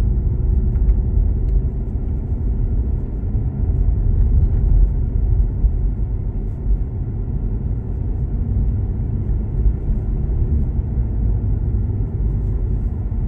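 Car driving uphill, heard from inside the cabin: a steady low rumble of engine and road noise.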